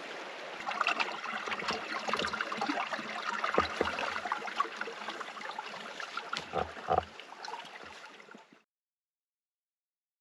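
Running water of a rocky mountain creek, a steady rushing with scattered clicks and a few low thumps, cutting off abruptly to silence about eight and a half seconds in.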